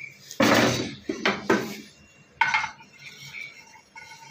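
Wooden spatula knocking and scraping against a nonstick frying pan of heating oil: four short clatters in the first two and a half seconds.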